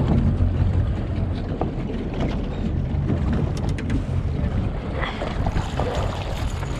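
Wind buffeting the microphone, with sea water sloshing against the side of a small boat. A few light clicks come about three and a half seconds in.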